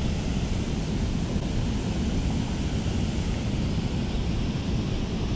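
Steady rush of turbulent water pouring from a river weir, mixed with wind buffeting the microphone.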